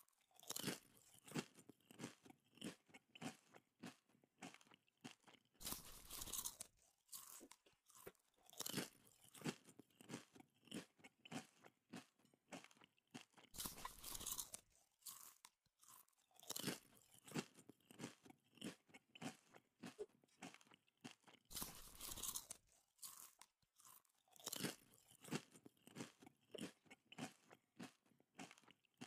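A person chewing chicken feet: continuous crunching in rapid small clicks, with louder crunches every few seconds.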